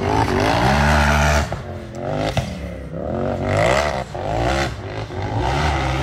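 Race buggy engine revving hard in three surges, each climbing in pitch and then backing off, with a sharp knock about two seconds in.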